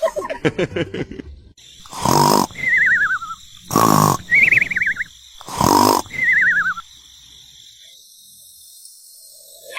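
Cartoon snoring sound effect: three loud rasping snores, each followed by a wavering whistle that slides down in pitch, then quiet.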